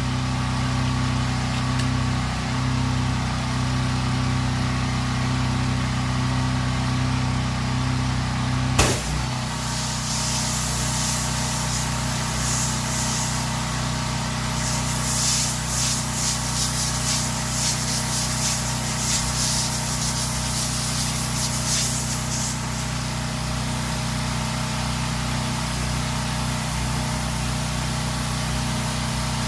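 Engine of a pressure-washing rig running steadily. A sharp click about nine seconds in, after which the engine note shifts and a hissing water spray runs for about twelve seconds.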